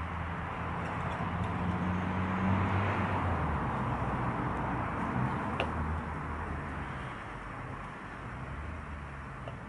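Sausages sizzling in a frying pan on a canister gas camping stove, with a vehicle's engine going past in the background, swelling and then fading over the first few seconds. A light click about five and a half seconds in.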